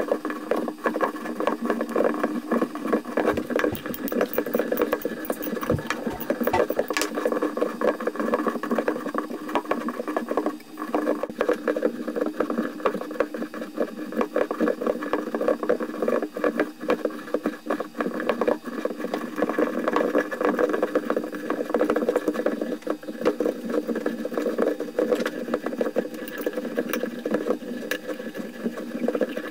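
Steady mechanical running noise with a dense fine crackle, dipping briefly about ten seconds in.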